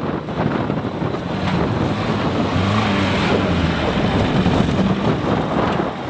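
Off-road vehicle engine working under load, its pitch rising and falling in the middle, with wind buffeting the microphone.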